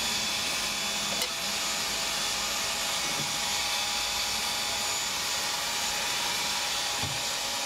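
Steady hiss of gas burners firing under a cast-iron bungeoppang (fish-shaped bread) mold, with a small click about a second in.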